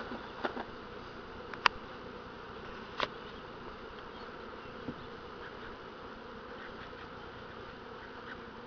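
Honeybees buzzing steadily in a mass around an open hive, with a few short sharp knocks, the loudest about a second and a half in.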